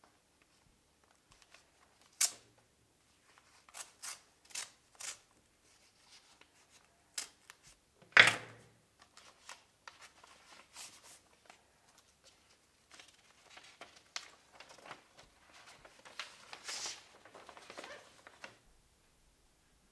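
Paper being handled at a desk: an envelope opened and a folded letter taken out and unfolded. A string of short, crisp paper crackles and rips, the loudest a sharp one about eight seconds in, then a longer stretch of paper rustling near the end.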